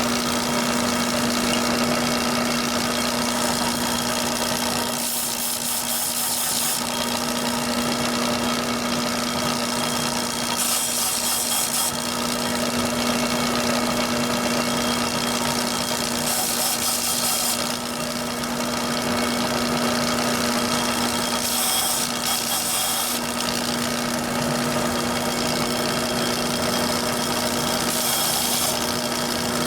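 Small electric bench sander running with a steady hum; about five times a wooden part is held against the abrasive for a second or two, adding a high hissing scrape as the motor is loaded. The part is being sanded down a little at a time to a snug fit.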